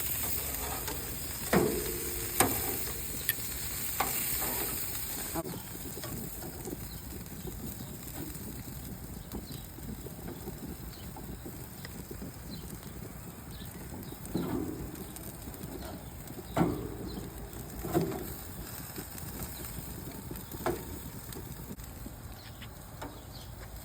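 Meat sizzling on a barbecue grill; the sizzle drops away about five seconds in. Scattered clicks and knocks come from the food being handled and turned on the grill.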